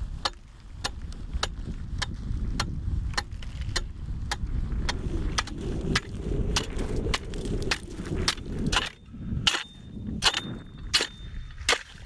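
A run of sharp, irregular pops and cracks, about two to three a second, over a low steady rumble.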